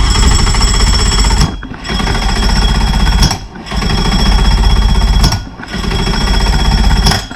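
Electric starter cranking a 2005 Mercury Optimax 115 two-stroke outboard in four bursts of about a second and a half each, with a rapid chattering beat, and the engine not firing. It is a crank-no-start, and the owner says it doesn't sound normal.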